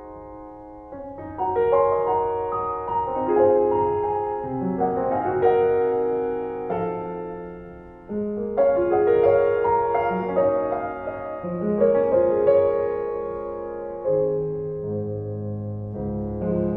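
Instrumental piano music with held notes and changing chords; the playing dips about eight seconds in, then a new phrase comes in.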